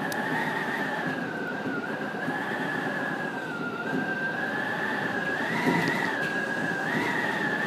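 JR 811 series electric train heard from inside the driver's cab while running: a steady rumble of running noise with a high, held whine that wavers slightly in pitch.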